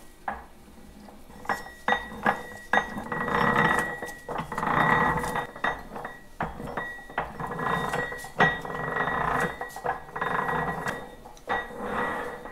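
Metal clinks and knocks of tractor parts and tools being handled on a Farmall MD's gear case and rear axles. The sound stops and changes abruptly several times.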